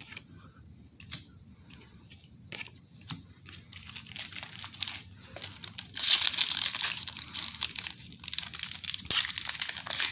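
Faint soft clicks of trading cards being flipped through, then from about six seconds in the loud crinkling of a foil Panini Prestige card pack wrapper being handled in the hands.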